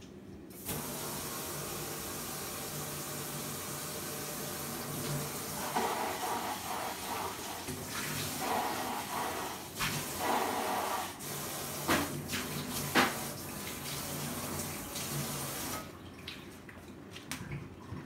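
Water running steadily, as from a tap. It starts abruptly about a second in and cuts off suddenly near the end, with the splash changing in the middle as something is held under the stream. Two sharp knocks come during it.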